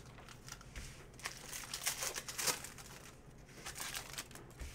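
Foil wrapper of a Panini Prizm football card pack crinkling as it is torn open and the cards are slid out, a run of quick, sharp crackles that is busiest about two seconds in.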